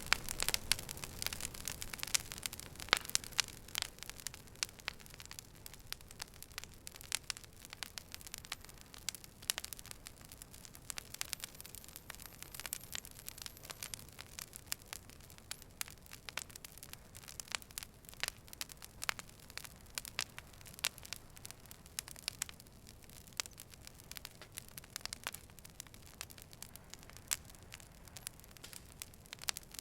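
Fire crackling: irregular sharp pops and snaps over a soft steady hiss, a little denser and louder in the first couple of seconds.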